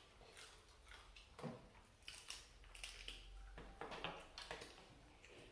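Faint chewing of prawn legs in curry: soft crunches and clicks of shell between the teeth, scattered irregularly with a few louder ones about a second and a half in and around four seconds in.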